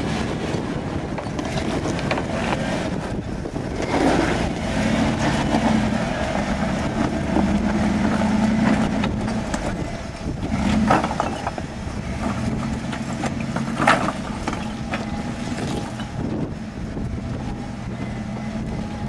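A rock-crawling Jeep's engine running at low, steady revs as it climbs over boulders, with a few sharp knocks as it goes over the rocks, the loudest about two-thirds of the way through.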